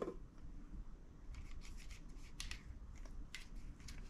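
Silicone spatula scraping soft cookie batter off a stand mixer's flat beater and steel bowl: a series of faint, short scrapes and rubs.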